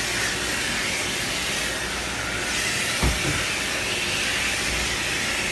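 Car wash's overhead central vacuum running through its hose, a steady hiss of air rushing in as the car's interior is vacuumed, with a single knock about three seconds in.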